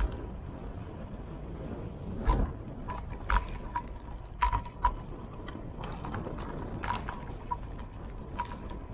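Irregular sharp metallic clicks and rattles, a dozen or so bunched in the middle, each with a brief ringing note, over a steady low rumble of wind and road noise.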